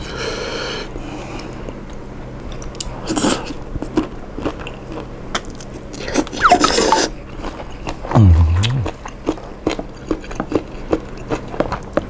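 A person eating a bowl of tom yum seafood instant noodles close to the microphone: several short slurps of noodles and broth, chewing with many small wet clicks, and a brief hummed "mm" about eight seconds in.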